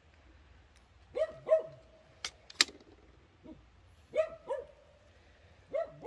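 A dog barking in quick double barks, two pairs about three seconds apart, each bark dropping in pitch. Between the pairs come two sharp clicks.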